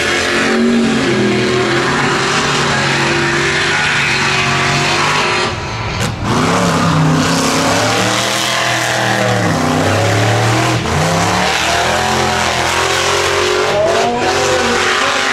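Mega truck's engine running hard at high revs, its pitch rising and falling as the driver works the throttle, over a continuous hiss of tires throwing dirt. The sound dips briefly about five and a half seconds in, then the engine revs on.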